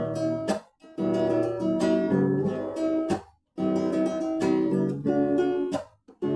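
Acoustic guitar strumming chords, in phrases broken by short pauses about a second in, around three seconds in, and near the end.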